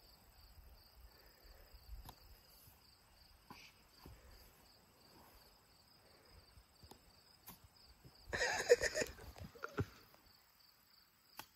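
Crickets chirping steadily in an even pulsing rhythm, faint. About eight seconds in there is a brief louder sound.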